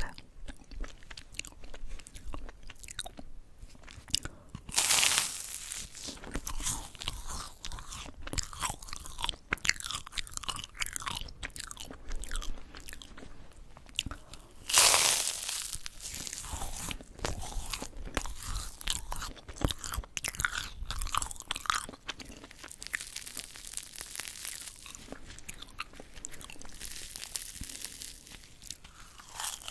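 Close-miked crunching and chewing of yugwa, Korean fried glutinous-rice crackers coated in puffed rice. Two loud crisp bites come about five seconds in and again about fifteen seconds in, with crackling chewing in between.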